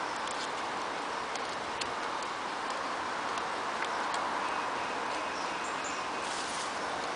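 Scattered sharp clicks and ticks of a plastic bait spod being handled and filled with bait by hand, over a steady hiss.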